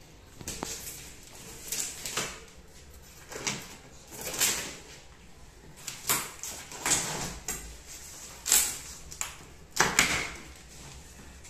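Packing tape and cardboard flaps of a large shipping box being torn open by hand: short ripping sounds, about one a second.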